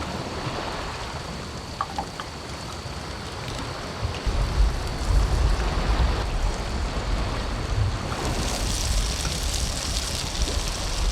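Steady rushing noise of wind and sea surf, with wind buffeting the microphone in a low rumble from about four seconds in. A higher hiss joins about eight seconds in.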